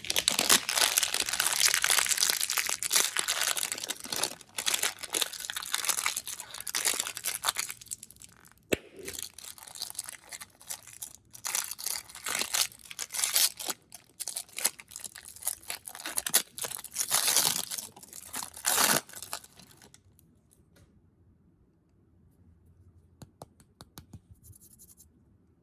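Plastic candy wrappers crinkling and tearing, close to the microphone. Dense crackling runs for about twenty seconds, then gives way to a few faint clicks and taps.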